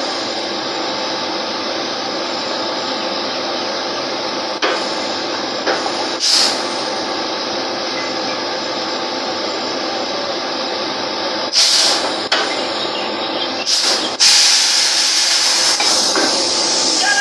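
Drilling rig floor machinery running with a steady loud din, broken by metal clanks of pipe-handling tools. Sharp bursts of hissing come several times, the longest about 14 seconds in, lasting about two seconds.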